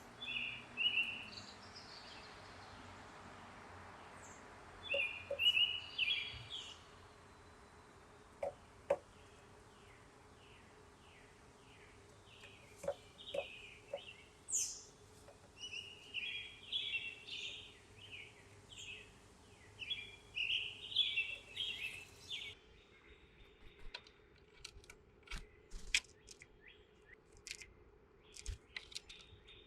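Wild songbirds chirping and calling, many short high notes and quick runs of notes, over a faint steady background hiss that drops out suddenly about three-quarters of the way through.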